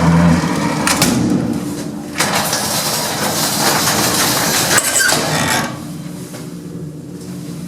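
Metal gate of a 1970s gated lift being slid and rattling, in two stretches: one of about two seconds, then after a short break one of about three and a half seconds. A steady low hum runs underneath.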